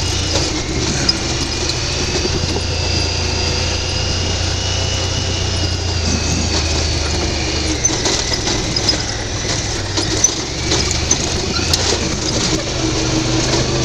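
UTV engine and drivetrain running steadily while driving over rough ground, a low hum with a high whine above it and scattered knocks and rattles.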